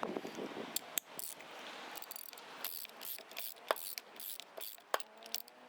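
Socket ratchet wrench with a 1 3/16 inch socket clicking in irregular strokes as a vise part is tightened.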